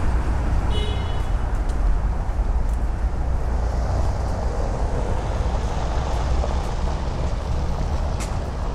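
Steady city street traffic: vehicles passing with a continuous deep rumble and road noise.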